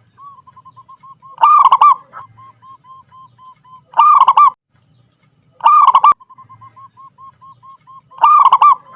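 Zebra dove (perkutut) singing: four loud rolling coos about two to three seconds apart, with soft, quick, evenly repeated notes at the same pitch between them.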